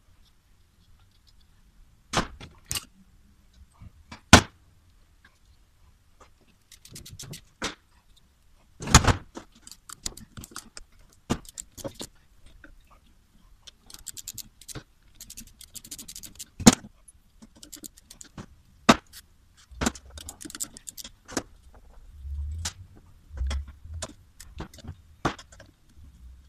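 Ratchet wrench clicking in short rapid bursts, with metal tools and parts knocking and clanking sharply against each other and the workbench as the turbocharger is unbolted.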